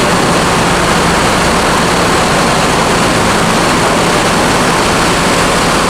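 Loud, steady engine and machinery drone in the enclosed vehicle deck of a ferry, with a constant low hum.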